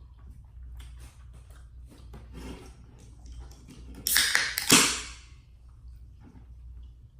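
Close-miked eating sounds from a seafood boil mukbang: wet chewing and small mouth clicks, with a loud noisy burst about four seconds in that lasts about a second. A low steady hum runs underneath.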